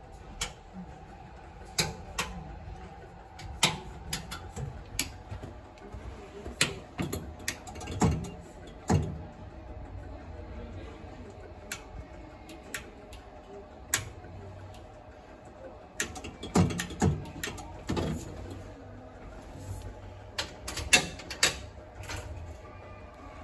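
Irregular sharp clicks and knocks, some singly and some in quick clusters, over a steady low hum, as the rotary switches and controls on a tram's driver's control panel are worked.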